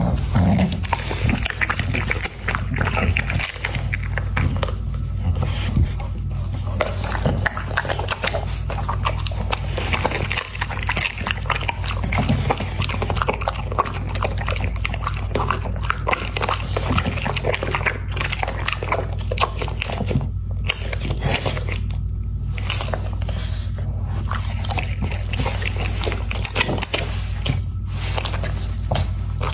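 American Pocket Bully dog chewing and biting food, a dense run of irregular wet clicks and snaps.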